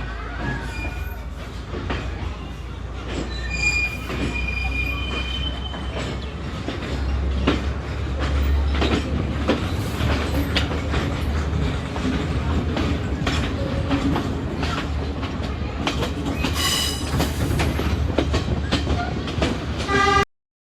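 Passenger train on Sri Lanka's Kelani Valley line running, heard from inside the carriage: a steady rumble with repeated clicks of the wheels over rail joints and a few brief high squeals from the wheels. The sound drops out abruptly for a moment near the end.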